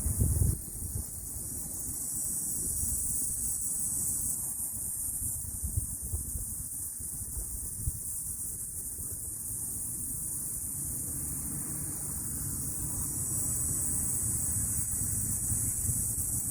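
Cicadas buzzing in a steady, high-pitched drone that swells and fades, over a low rumble. One brief sharp click sounds about eight seconds in.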